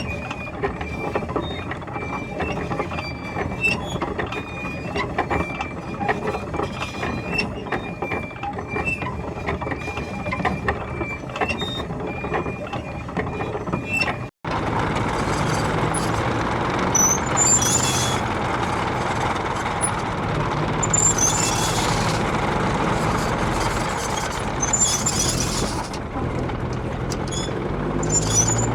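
A US tank running, its tracks rattling and clicking with a short high squeak repeating about once a second. About halfway through, the sound cuts to a louder, denser run of engine and track noise with bursts of very high squealing.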